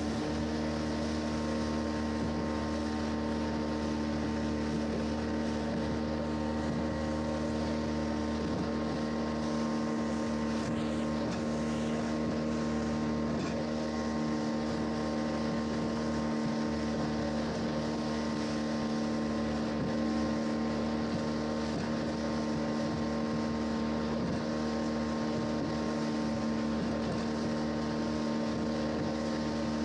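A motorboat's engine running steadily at cruising speed, holding an even pitch under the rush of water and spray along the hull.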